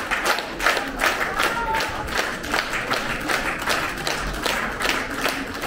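Concert audience clapping in unison, a steady beat of about three claps a second.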